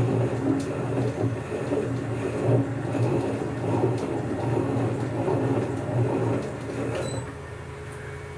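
Boxford metal lathe running under power while screw-cutting a thread, its motor and gear train making a steady mechanical hum. About seven seconds in there is a click and the running noise falls away as the spindle comes to a stop.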